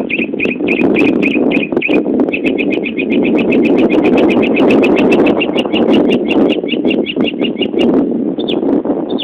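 Northern mockingbird mimicking a car alarm: a long run of rapidly repeated whistled notes, about four a second, then speeding up to about seven a second from around two seconds in. It breaks off near the end into a couple of single higher notes. A steady low rushing noise runs underneath.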